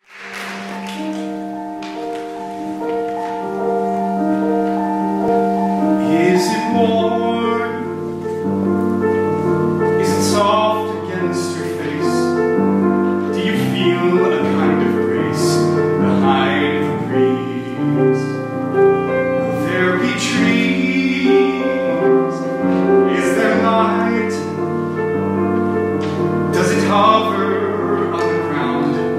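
Baritone singing a slow ballad with grand piano accompaniment. The piano plays alone at first, and the voice comes in about six seconds in.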